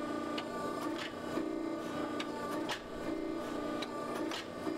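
Hydraulic forging press squeezing red-hot steel: a steady hum that cuts in and out about once a second as the dies press, with sharp clicks scattered through it.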